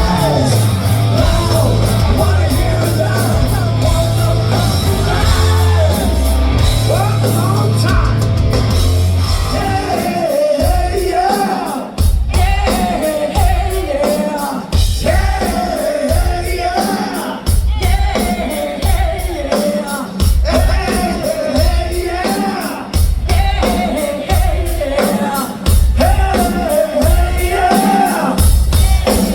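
Live hard rock band playing amplified through a concert PA, with drums, bass and guitar under singing. From about ten seconds in, a sung line repeats roughly every two seconds.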